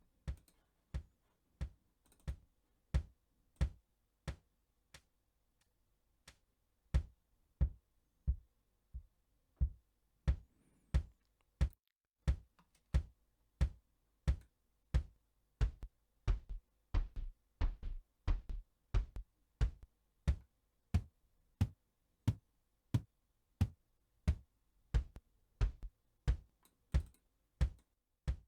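Sampled drum hits from the Drumslot drum plugin, triggered over and over at a steady pulse while its filter, pitch and gain controls are adjusted. There is a short pause about five seconds in, and the hits come closer together after that.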